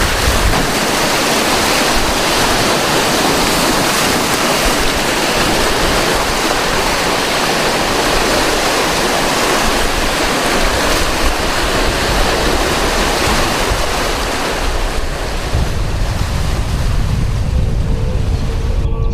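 Rough waves breaking and washing over boulders on a rocky lake shore, in a continuous rush of surf. Strong wind rumbles on the microphone, heavier near the end.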